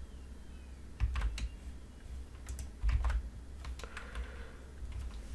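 Computer keyboard keystrokes in a few short scattered clusters, with pauses between them.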